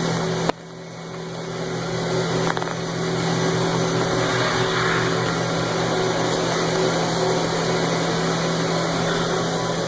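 Steady running hum of a Haas EC-400 horizontal machining center. About half a second in there is a click, the sound drops away, then builds back up over the next two seconds to a steady level.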